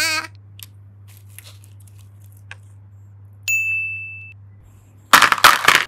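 A bright, single-toned ding chime rings about three and a half seconds in and fades out within a second. Just before the end, a short, loud crackling, rustling noise breaks in. At the very start, a pitched wobbling tone cuts off.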